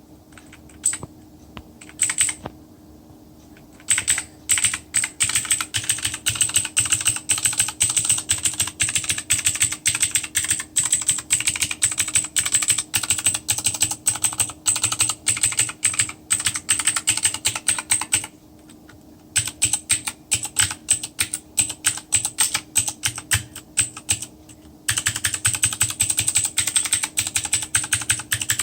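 Typing on an Armaggeddon MKA-61C 60% mechanical keyboard: a few single keystrokes, then three runs of fast key clicks with two short pauses between them.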